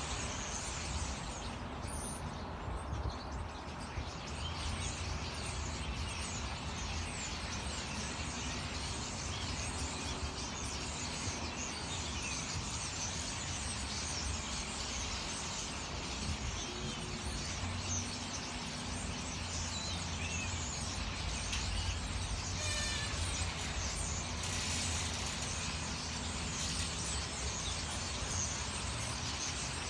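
Many small birds chirping and twittering at once, as from a tree full of birds, over a steady low rumble.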